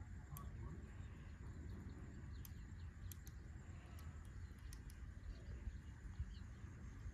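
Faint outdoor ambience: a steady low rumble with faint bird calls and a few small scattered clicks.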